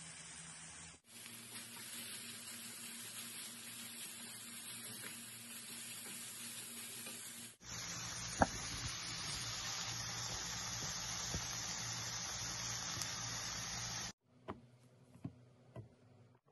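Food sizzling in hot oil in a pan, a steady hiss that is cut off and resumes at a different loudness twice, as separate takes are joined. Near the end the sizzling stops and a few light clicks and knocks follow.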